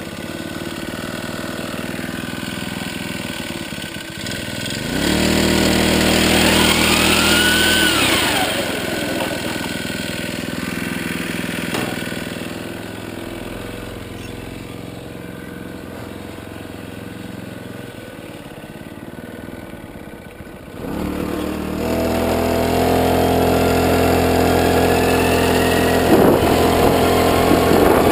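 Small Honda GX four-stroke engine on a bicycle with a pocket-bike CVT transmission, running. About five seconds in it is revved, with a high gear whine from the transmission rising and falling, then settles back to idle. From about three-quarters of the way through it holds higher revs as the bike gets under way, the transmission whine audible again.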